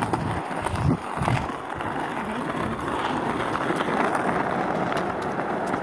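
Skateboard wheels rolling on an asphalt path: a steady gritty rumble with occasional light clicks.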